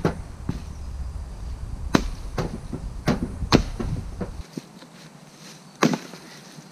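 Axe splitting firewood logs on a chopping block: about five sharp, loud chopping cracks a second or so apart, with lighter wooden knocks between them.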